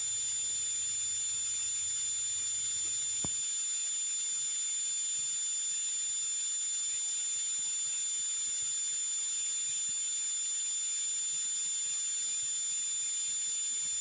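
Hamburger patty sizzling on a hot flat-top griddle: a steady hiss with a thin, high-pitched whine running under it, and one small click about three seconds in.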